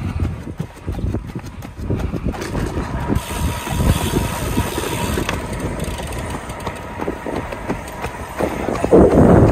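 A runner's quick footsteps striking a paved path, with wind rumbling on a moving microphone. A louder burst comes near the end.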